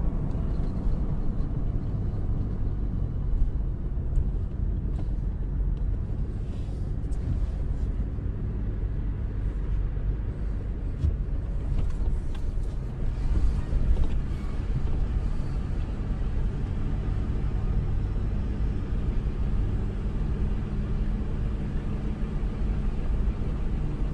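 Truck's engine and road rumble heard from inside the cab while driving, a steady low drone.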